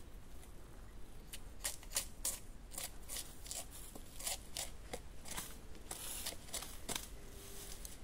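A knife cutting into the base of a young bamboo shoot: an irregular string of crisp, short cuts and snicks with quiet gaps between them.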